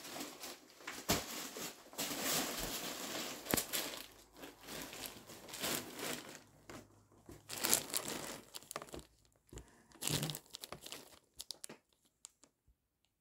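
Packed kite and its fabric bag rustling and crinkling as they are handled and set down on a cardboard box, with a few light knocks. The rustling dies away near the end.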